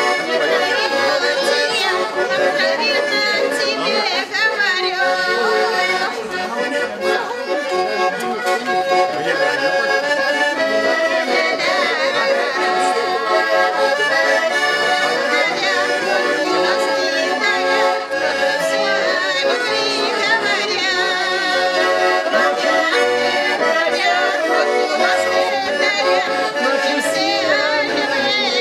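Russian garmon (button accordion) playing a traditional folk tune without a break.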